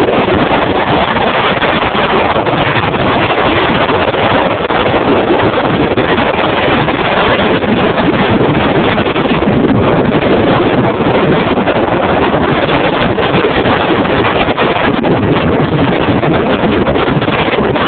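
Strong mountain wind blowing over the camera's microphone, a loud, steady rush of noise with no letup.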